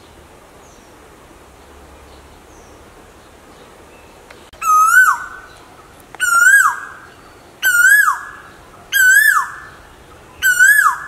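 Asian koel calling, most likely the male: five loud two-part 'ko-el' notes. Each note climbs slightly and then drops sharply at the end, and they repeat about one and a half seconds apart, starting about halfway through.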